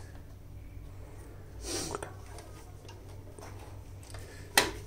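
Small clicks and scrapes of a plastic phone-clip holder being worked onto the metal end of a gooseneck phone stand's arm: a brief scrape about two seconds in and one sharp click near the end.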